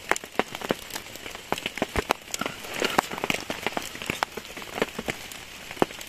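Light rain falling, its drops striking a nearby surface as many irregular sharp ticks over a soft steady hiss.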